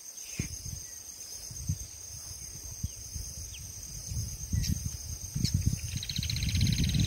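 Steady high chirring of insects, with low thuds and rumble on the microphone that grow stronger in the second half, and a brief fast-pulsed buzz near the end.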